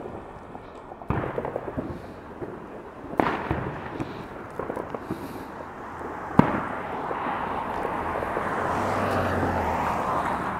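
Fireworks and firecrackers going off: sharp bangs about one, three and six seconds in, the last the loudest, with scattered crackling between them. In the second half a steady rushing noise swells and becomes the loudest thing.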